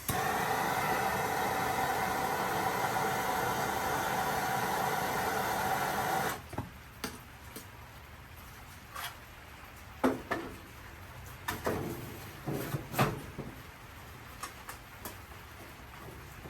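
A heat tool runs steadily on the smoker's igniter for about six seconds and then cuts off suddenly, as a trial fix for the igniter not lighting. Scattered light clicks and knocks follow.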